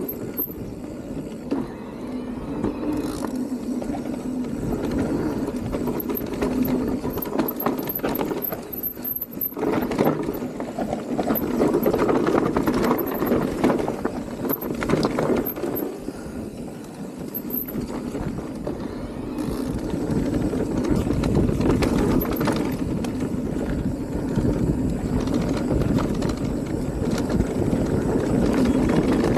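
E-mountain bike riding down a dirt trail: tyres rolling over the ground and the bike rattling and knocking over roots and bumps, rising and falling in loudness with the terrain.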